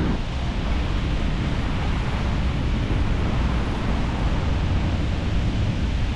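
Wind rushing over the microphone of a camera on a moving bicycle: a steady, loud low rumble.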